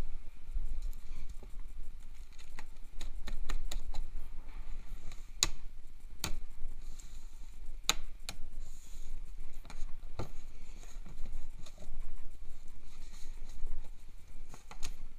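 Cardboard shipping box being cut and opened by hand: scissors snipping and slitting packing tape and cardboard, flaps pulled back, with cardboard and plastic wrapping rustling. Scattered sharp clicks and knocks, a few louder ones around the middle.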